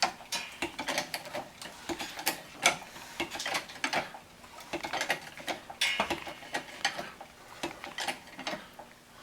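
Car jack being worked to lift the car, with a run of irregular metallic clicks and ratcheting ticks, a few each second.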